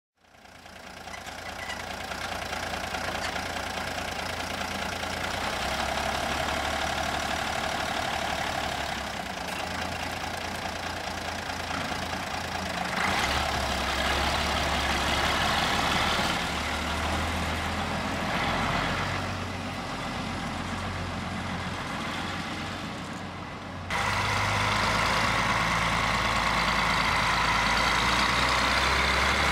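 BM-Volvo Bison tractor with a Volvo Viking truck engine running, its low rumble rising and falling in level. After a cut near the end it runs louder and steadier as the tractor drives off.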